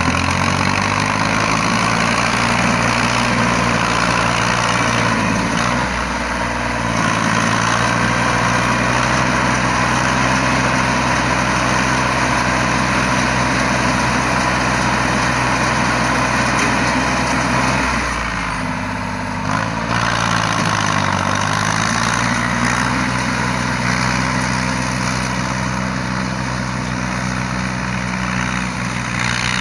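Yanmar YM3000 tractor's three-cylinder Yanmar 3T84 diesel engine running steadily while it pulls a round straw baler. The engine pitch sags and recovers near the start, about six seconds in, and again between about 18 and 22 seconds.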